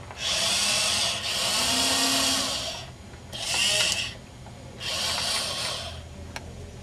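Small geared electric motors of a Robotix toy robot whirring as it drives and turns, starting and stopping in about four short runs.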